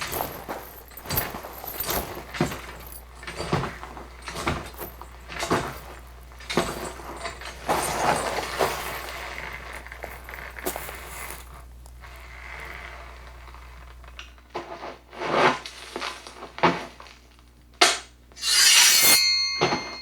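A quick, irregular series of knocks, clinks and clattering hits. Near the end comes a louder, longer crash that rings on with a few steady tones.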